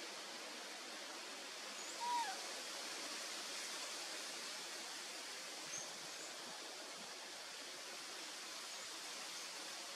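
A single short animal call, a falling tone, about two seconds in, over a steady hiss of outdoor background noise, with a few faint high chirps.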